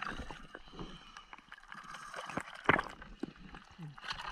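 Lake water sloshing and dripping around a waterproof camera as it comes up through the surface, with small scattered knocks and one sharper click about two and a half seconds in.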